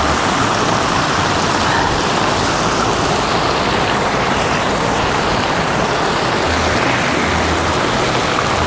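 Floodwater rushing down a swollen hillside creek in a torrent, a loud, steady wash of water noise.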